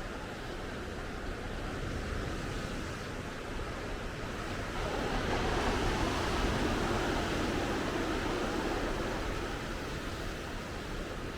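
Ocean surf: steady wash of waves that swells to its loudest about halfway through as a wave breaks, then eases off.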